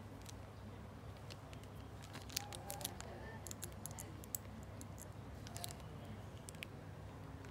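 Small clicks and taps of a plastic-and-metal airbrush moisture trap being turned over in latex-gloved hands, most frequent a couple of seconds in, over a steady low hum.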